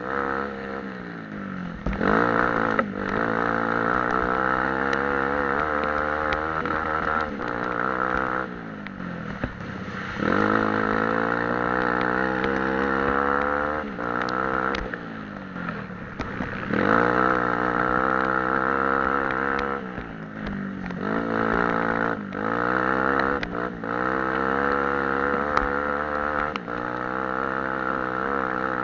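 Engine of an off-road racing machine heard from on board, revving up through the gears and backing off again and again. The pitch climbs, then drops sharply every few seconds, with a few short knocks over rough ground.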